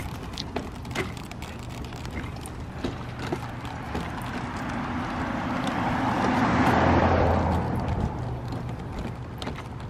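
Stroller wheels rolling and clicking over a concrete sidewalk beside a street. A car drives past, building up and loudest about six to seven seconds in, then fading.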